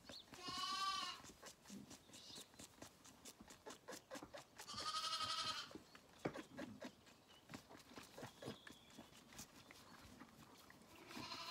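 Zwartbles lamb bleating, two wavering calls about a second long each, a few seconds apart, with a third starting near the end. Faint clicks and rustles between the calls.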